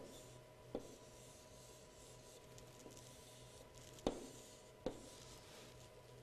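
Chalk drawing on a chalkboard: faint scratching of chalk strokes, with four short sharp taps as the chalk strikes the board. A faint steady hum sits underneath.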